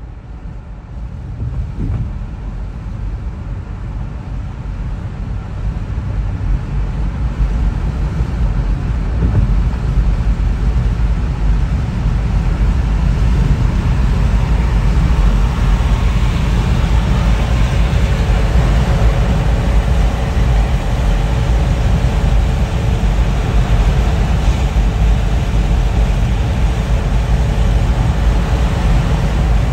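Car driving on a freeway: a steady rumble of tyres on the road and the running engine, growing louder over the first ten seconds or so as the car gathers speed, then holding level.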